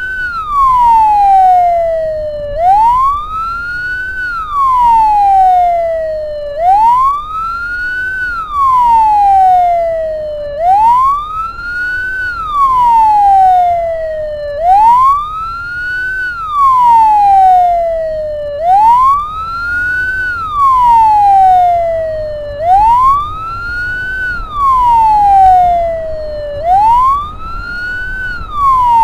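Ambulance siren sounding a slow wail: each cycle rises for about a second and a half and falls back over about two and a half, repeating every four seconds over a low rumble of engine and road noise.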